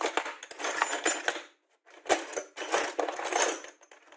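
Loose metal drill bits clattering and clinking against one another and the plastic case as a hand rummages through them. The rattling comes in two spells with a short pause just under two seconds in.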